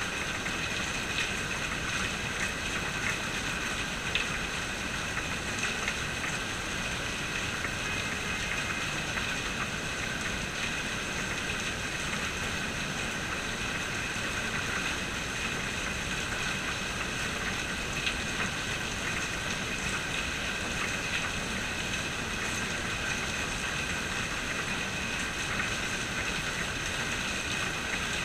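Steady rain falling and pattering on surfaces, with a few sharper drop ticks standing out now and then.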